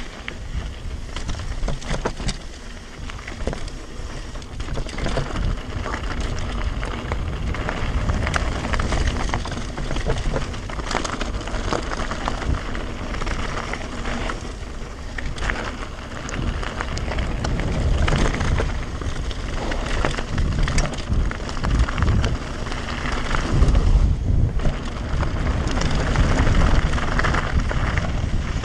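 Devinci Spartan carbon enduro mountain bike descending a dirt and gravel trail: tyres rolling over loose dirt and stones, with the bike rattling and clicking over bumps. Wind buffets the camera microphone with a steady low rumble.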